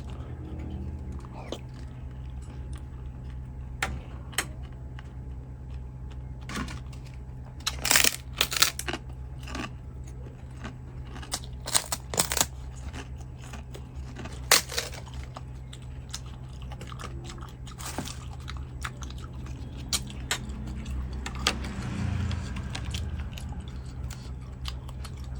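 A person chewing and biting into tiết canh (Vietnamese blood pudding), close to the microphone, with scattered sharp crunches. The loudest are a cluster about a third of the way in, and more around the middle.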